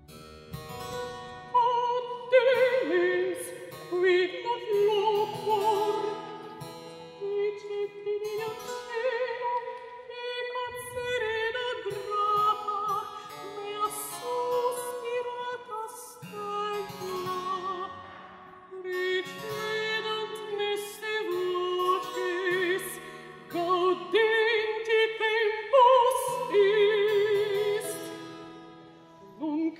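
Soprano singing a baroque motet with wide vibrato, accompanied by a small baroque string orchestra and harpsichord continuo.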